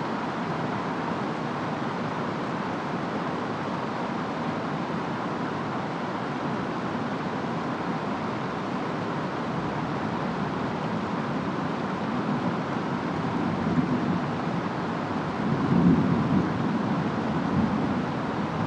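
Steady rain and wind, with distant thunder rumbling in low swells over the last several seconds.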